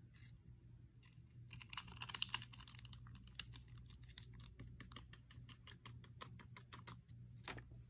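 Faint crinkling clicks of a foil hardener pouch being squeezed and handled over a plastic paint tub. The clicks come thick and fast from about a second and a half in until just before the end.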